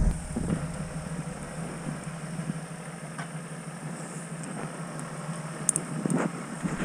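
Off-road vehicle's engine idling steadily, with a few faint clicks and knocks from work at the front bumper.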